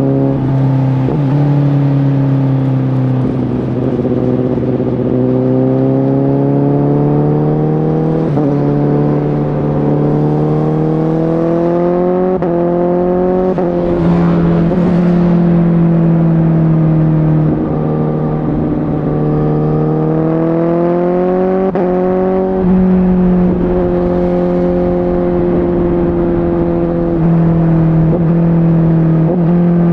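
Honda CBR1000RR Fireblade's inline-four engine with a Shark Factory aftermarket exhaust running under way at moderate revs, its note climbing and dropping several times with short breaks as it accelerates and changes gear, over rumbling wind and road noise.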